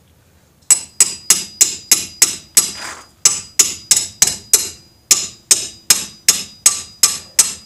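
A wrench on a stuck 13 mm hub bolt being struck over and over with a metal tool, sharp ringing metal-on-metal clanks about three or four a second, with a short pause partway through. The strikes are meant to knock the bolt loose and break any rust in the threads.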